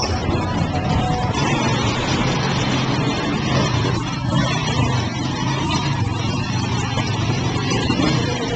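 Motor vehicle engine running steadily, with street noise and indistinct voices.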